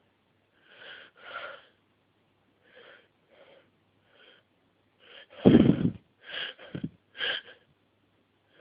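A person's shaky, catching in-breaths building up to a hay-fever sneeze that has been held back and feels stuck, then one loud sneeze breaking out about five and a half seconds in, followed by a few quicker catching breaths.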